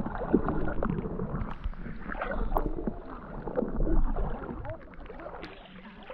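Shallow river water sloshing and splashing with scattered short knocks of footsteps, over a low rumble of wind on the microphone; it quietens about two-thirds of the way through.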